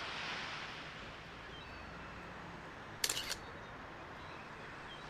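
A camera shutter fires about three seconds in: a quick cluster of sharp clicks lasting about a third of a second, over a steady background hiss.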